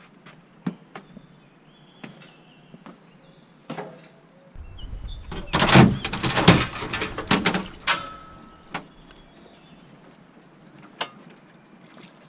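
Scattered knocks and clicks of work being done by hand, then about three seconds of loud scraping and rustling with a deep rumble in the middle, before a few more knocks.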